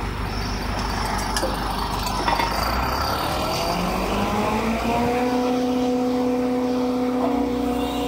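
40 m³/h concrete mixer pump running: its motor and mixing drum keep up a steady mechanical noise. About halfway in, a whine rises in pitch and then holds level as the machine comes up to speed.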